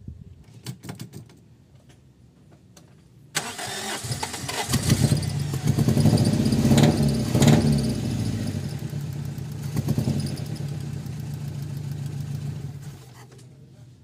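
Carburetted Toyota 4A-F four-cylinder engine cranked over steadily on the starter for about nine seconds during a compression test of cylinder 1, after a few light clicks. It cuts off near the end, with the gauge reading only about 100 psi on that cylinder.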